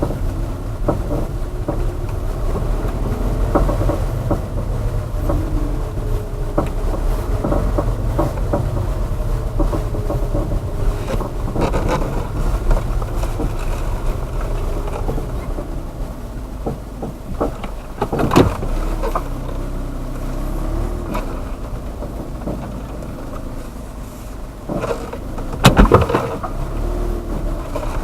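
Worn saddle creaking and squeaking with movement, in wavering, bending squeals over a steady low rumble. Near the end there is one sharp knock.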